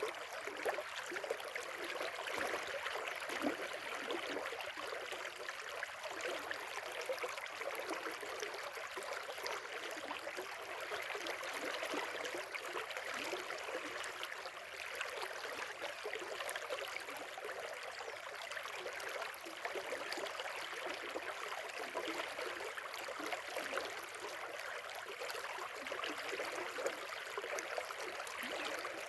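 A river flowing steadily, an even rush and babble of water.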